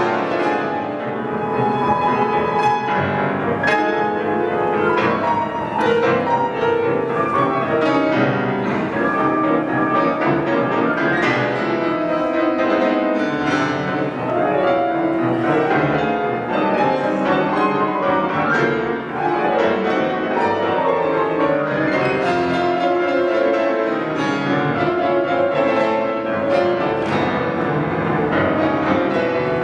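Two concert grand pianos, one a Steinway, playing a dense classical two-piano passage: many struck notes and chords in quick succession, without a break.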